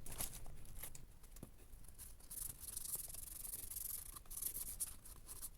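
Faint rubbing and scraping from laptop parts being handled during a fan and heatsink swap, with scattered small clicks.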